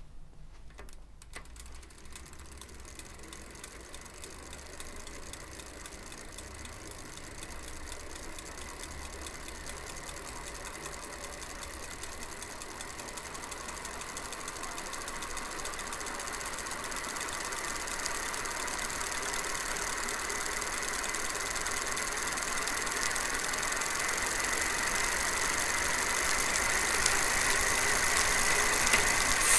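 Shimano Nexus 7 (SG-7C18) planetary hub gear spinning in a chain-driven bicycle wheel: a steady ringing whir, brighter because its grease was replaced with oil, with the ticking of a ratchet over it. It grows steadily louder as the wheel spins faster.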